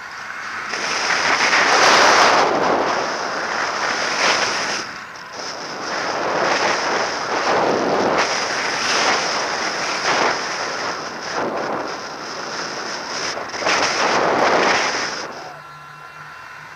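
Airflow rushing over the onboard camera microphone of a radio-controlled model aircraft in flight, swelling and easing in gusts as the plane banks and turns. A steady high whine runs underneath, and the rush drops away a little before the end.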